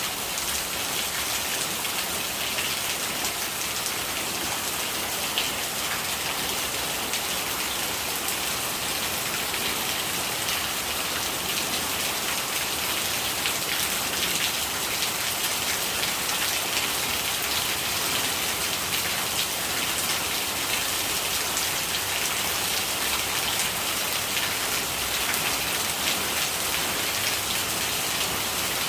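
Steady rain falling on a surface, an even hiss dotted with many small drop taps.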